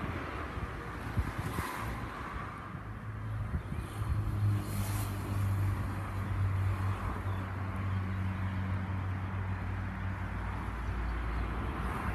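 A motor vehicle engine running steadily, a low even hum that sets in about four seconds in, over a constant hiss of wind.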